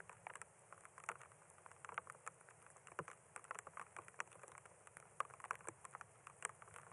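Light desert rain: scattered raindrops pattering as irregular, faint ticks.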